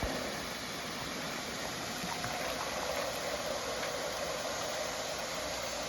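Steady rushing and splashing of falling water: a small jungle waterfall pouring onto sand.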